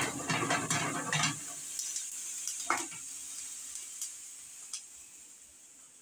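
Whole small peppers sizzling in a hot pan on a gas stove as they start to char, with a run of crackles and knocks in the first second or so as they shift against the pan and a single knock about two and a half seconds in. The sizzle fades toward the end.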